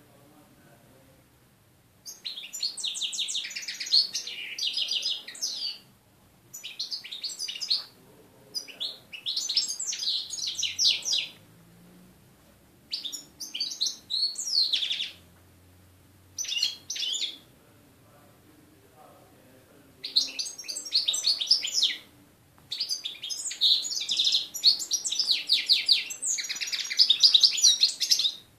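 European goldfinch singing: seven phrases of rapid, high twittering song, each one to five seconds long, with short pauses between them.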